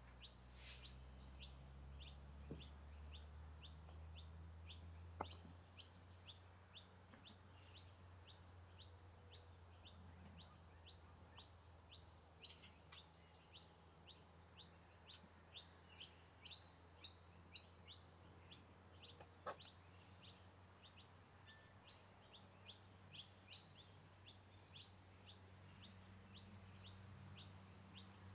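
Faint bird chirping: short high chirps repeated evenly, about two a second, over a low steady hum, with one sharp click about five seconds in.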